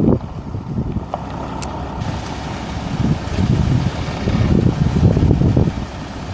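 A 2008 Dodge Ram 2500 pickup with a 5.7 L V8 gas engine drives slowly over gravel, with wind gusting on the microphone as a low, uneven rumble that swells and fades.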